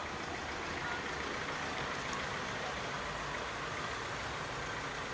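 Steady hum of distant street traffic.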